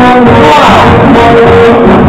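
Loud dance music with held brass notes and a sliding note about half a second in.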